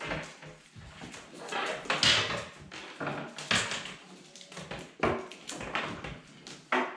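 Irregular short scraping and crackling noises, a few louder than the rest, as a hand tool strips the plastic sheathing back from the ends of electrical cable.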